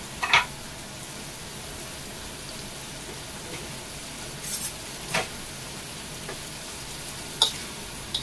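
Spaghetti with tuna sizzling steadily in a stainless steel wok, with four sharp clinks of a metal spatula against the pan: the loudest right at the start, two a little past the middle and one near the end.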